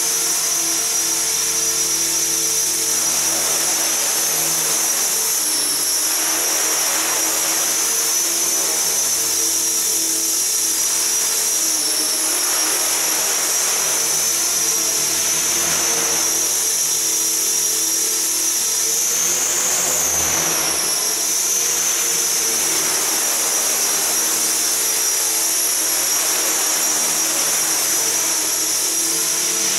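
Align T-Rex 450 SE V2 electric RC helicopter in flight: the high whine of its brushless motor and gears over the whir of the spinning rotor blades. The whine holds steady, then rises and falls briefly about two-thirds of the way through as the throttle changes.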